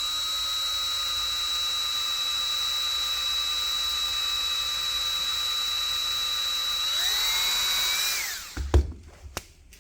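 Small electric power tool spinning a brass wire brush against old brass door-knob hardware, running with a steady high whine. About seven seconds in its pitch rises, and a second later it stops, followed by a few knocks.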